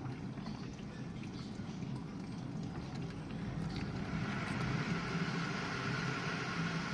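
GE dishwasher running: a steady low motor hum, joined about halfway through by a swelling hiss that stays up.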